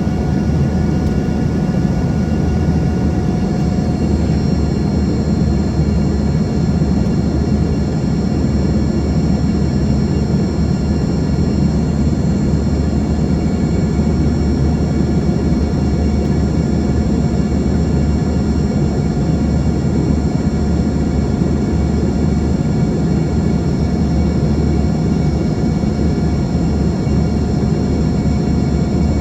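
Steady in-flight cabin noise of an Embraer ERJ-145: the drone of its rear-mounted Rolls-Royce AE 3007 turbofans and rushing air, a low rumble with a few faint steady whining tones over it, unchanging throughout.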